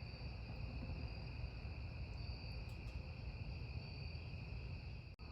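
Crickets chirping steadily in two high, continuous trills, over a low steady rumble.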